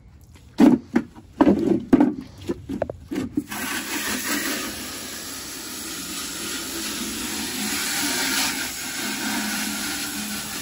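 A few uneven rubbing strokes, then a steady hiss of a pressure washer spraying water from about three and a half seconds in.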